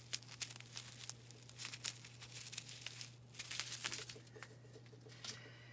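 Plastic packaging being handled, crinkling and rustling in small irregular crackles, over a low steady hum.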